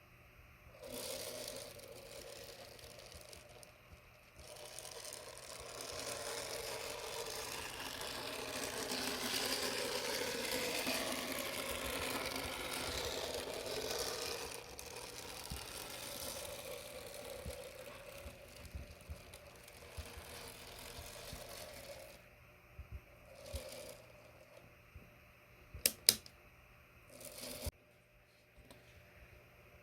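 Motor and gear train of a tiny OO9 narrow-gauge model locomotive on a TU-Koppel chassis, running along the track with a rattling whir. It grows louder through the middle and then fades, with a few sharp clicks near the end.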